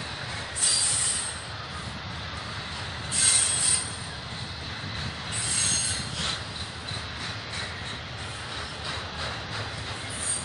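BNSF intermodal freight train of trailers on flatcars rolling past, a steady rumble of wheels on rail. Short high-pitched wheel squeals break out about a second in, near three and a half seconds, and again near six seconds.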